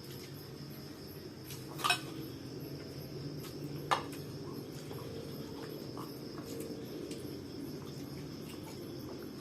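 Steady high-pitched insect drone, like crickets, over a low background rush, with two sharp clicks about two seconds apart.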